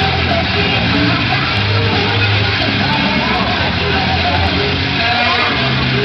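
Music playing over an arena's loudspeakers, with a steady, sustained bass line that changes note every second or so, over the hubbub of a large crowd.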